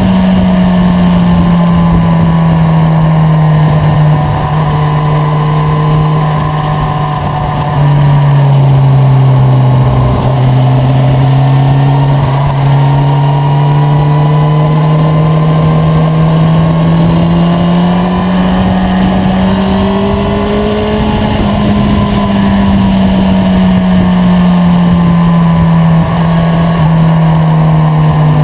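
Motorcycle engine running under way, its note steady but shifting slowly in pitch. About eight seconds in the note drops suddenly and gets louder, then climbs gradually before easing back down near the end.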